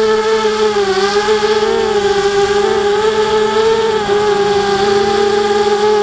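Four Emax 2280kv brushless motors with 5030 propellers on an FPV racing quadcopter, whining steadily in flight as heard from the onboard camera, the pitch wavering slightly as the throttle shifts.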